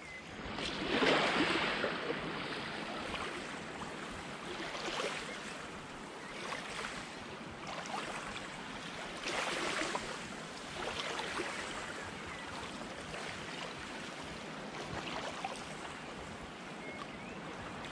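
Small waves washing onto a loch shore, a steady rush of water that swells every few seconds, the strongest surge about a second in.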